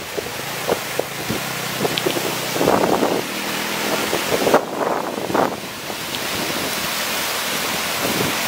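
Surf washing up over the sand in a steady rush, swelling a little louder a few times, with wind buffeting the microphone.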